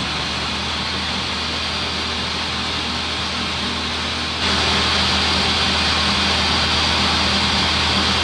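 Jobsite table saw running at full speed, a steady motor and blade noise that gets louder about halfway through.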